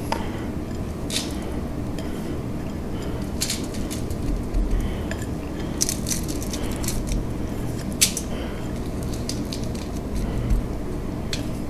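Quiet handling of food: shredded cheese being pressed by hand onto a sauce-covered meatloaf, with a few light, scattered clicks and taps from the bowl and foil, over a steady low hum.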